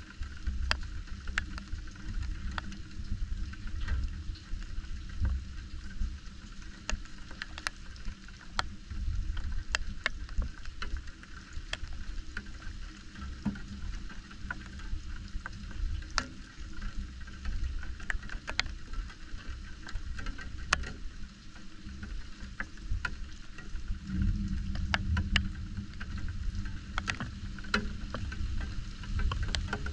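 Steady rain with scattered sharp drops ticking on a nearby surface, over a continuous low rumble.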